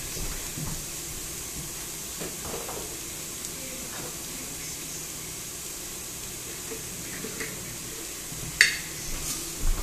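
Chopped onion and garlic frying in oil in a pot on the stove, a steady gentle sizzle. A single sharp click sounds near the end.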